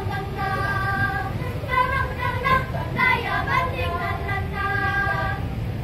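Children's choir singing in long held notes, accompanied by a children's string ensemble with violins.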